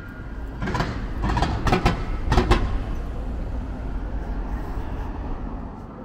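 A passing vehicle with a steady low rumble and, in the first half, a quick run of loud clatters.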